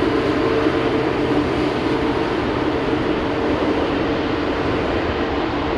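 Airbus A380-841 airliner taxiing, its four Rolls-Royce Trent 970 turbofans running at low power: a steady jet engine noise with a droning hum, easing off slightly near the end.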